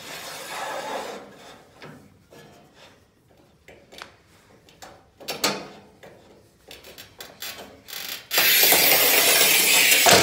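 Manual tile cutter (Cortag Master 125) at work on a porcelain tile: a short sliding rasp at the start and scattered clicks and knocks as the tile and cutting head are set, then, about eight seconds in, a loud steady scratching hiss for about two seconds as the scoring wheel is pushed along the tile to score it.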